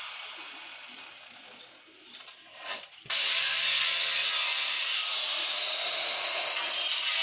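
Angle grinder with a stone-cutting disc cutting a granite countertop slab. The cutting noise fades away over the first two seconds, then about three seconds in it starts again suddenly, loud and steady.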